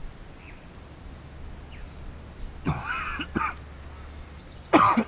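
Two short, loud, harsh voiced calls, one about halfway in and a louder one near the end, each breaking into two parts, over faint outdoor background hiss.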